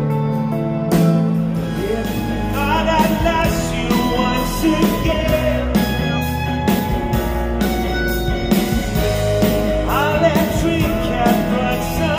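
Rock song with a male-range sung melody over guitar, bass and a steady drum beat.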